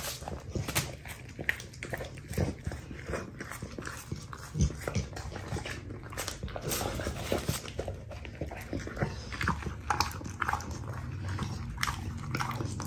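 American Staffordshire Terrier eating hamburgers: chewing and biting, heard as a run of irregular clicks and smacks.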